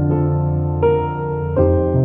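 Background piano music: soft sustained chords, with a new chord struck about a second in and another near the end.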